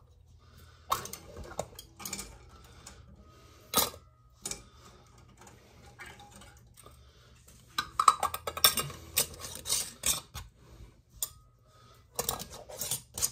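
Glass canning jars of soup being handled on a kitchen counter: scattered sharp clinks and knocks, busiest about eight seconds in and again near the end.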